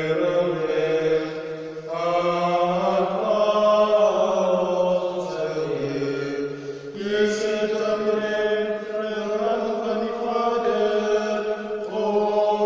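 Slow sung liturgical chant: long held notes that change pitch in steps every second or two.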